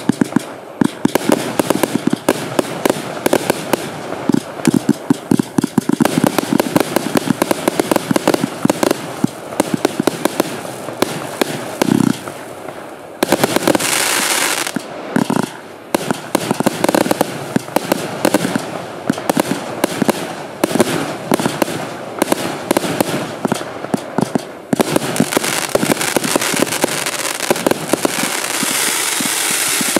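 A 412-shot compound fireworks cake firing in rapid succession: a dense, unbroken volley of launches and bursts. There is a loud hiss about 13 seconds in, and a steadier hiss runs under the shots near the end.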